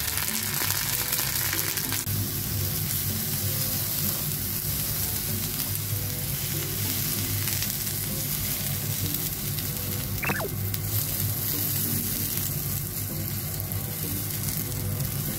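Food sizzling in oil in a non-stick frying pan: first a fried egg, then small minced-meat sticks being turned with chopsticks, a steady even sizzle throughout. A short rising squeak comes about two-thirds of the way through, and soft background music plays underneath.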